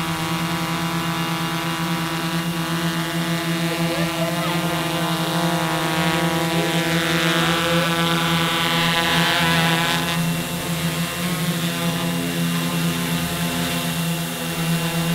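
Four brushless motors and propellers of a 3D-printed Crossfire 2 quadcopter buzz steadily in flight, a pitched multirotor drone. For a few seconds in the middle it swells louder and its pitch shifts as the craft manoeuvres close overhead.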